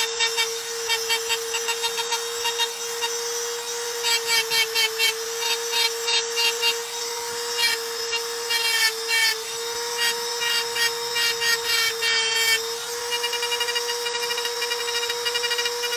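Electric grinder running at a steady high whine while it grinds into granite, the grinding coming in quick uneven pulses as the tool is worked over the stone surface.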